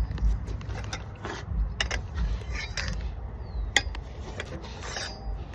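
Breaker bar and socket working tight 17 mm lug nuts loose: scattered metallic clicks and knocks, the sharpest one about two-thirds of the way through.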